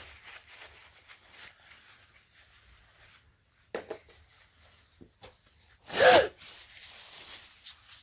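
Faint rubbing and scraping as dirt is cleaned off the dug-out bones of a dinosaur excavation kit, with a brief louder sound about six seconds in.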